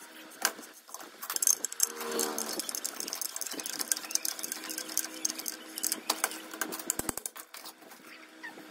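Rapid metallic clicking and scraping as a pipe wrench grips and turns the nut on a rotavator disc hub, with a faint steady squeal partway through.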